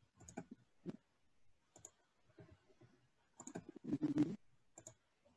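Faint computer mouse clicks: a few single clicks, then a quicker, louder run of them from about three and a half to four and a half seconds in.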